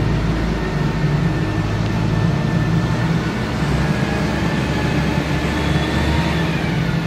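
A 10-ton forklift's engine running steadily under load while it carries a shipping container, a continuous low hum with a faint high whine that dips slightly near the end.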